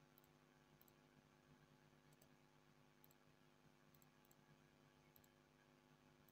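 Near silence: a faint steady hum with a few very faint, short clicks, such as mouse clicks while wiring a circuit on a computer.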